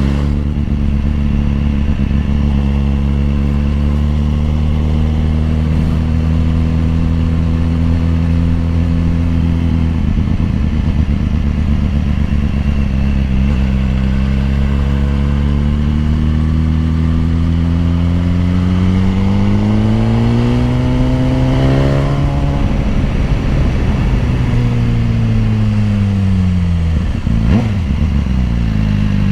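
BMW S1000RR's inline-four engine running under way, holding a steady note for about ten seconds, then rising gradually as the bike accelerates and falling back as it slows. There is a short sharp knock near the end.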